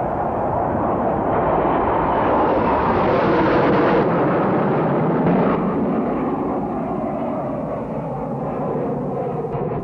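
Jet noise from a Hawker Siddeley Nimrod's four Rolls-Royce Spey turbofans as the aircraft flies past low overhead. It builds to its loudest about three to four seconds in, then eases slightly as the aircraft banks away.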